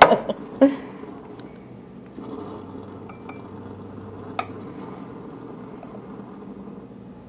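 Steamed almond milk poured from a stainless steel frothing pitcher into a ceramic cup, a soft steady pouring sound that grows a little about two seconds in, with one light clink a couple of seconds later.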